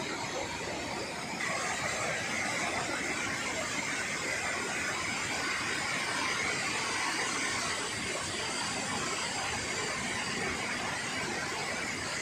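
Mountain waterfalls pouring down a rock face: a steady rush of falling water that grows a little louder about a second and a half in.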